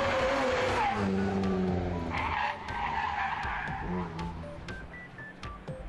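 Rally car driving hard on a stage, its engine note dropping and climbing with the throttle and gear changes. About two seconds in there is a stretch of tyre squeal as it slides through a corner.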